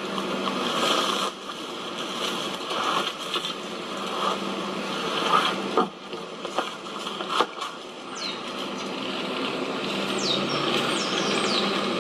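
A container of potting soil being tipped over and dumped out: rough rustling and scraping of soil and the pot, with several sharp knocks along the way.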